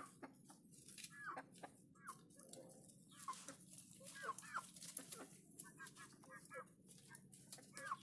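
Chickens clucking softly, a scattered string of short calls.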